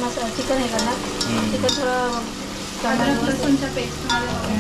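Metal spoon stirring and scraping onion and tomato masala frying in oil in a metal pot, with a sizzle and light clicks of the spoon against the pot. A melody sounds over it.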